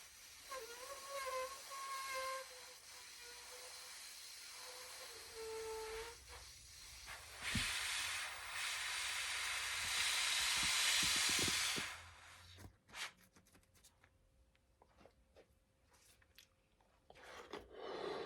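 Air escaping from the neck of a rubber balloon as it deflates: first a wavering high squeal, then a steady rushing hiss for about four seconds that cuts off, followed by small rubbery clicks and a short puff of breath near the end.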